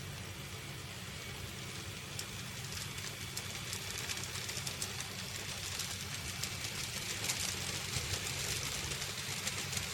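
N-gauge model train running on its track: a steady low motor hum with light clicking from the wheels over the track, growing gradually louder.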